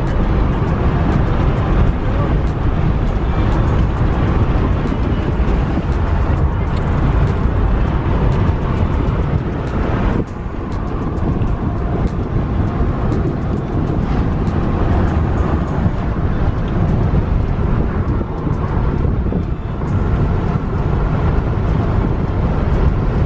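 Car driving along a road, heard from inside the cabin: steady, loud road and wind noise, heaviest in the low end, with a brief dip about ten seconds in.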